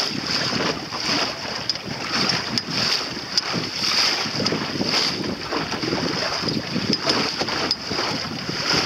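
Wind buffeting the microphone over the swish of water along the hull of a small sailing dinghy under way, with a few faint clicks.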